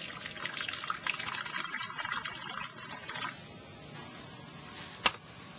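Hot water poured in a steady stream into a ceramic tea bowl, stopping about three seconds in. A single sharp click comes near the end.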